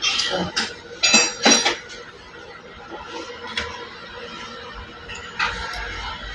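Small metal tools and parts clinking and knocking against each other, several sharp clinks in the first two seconds, then a few scattered ones, during work on a diesel injector nozzle. A low hum comes in near the end.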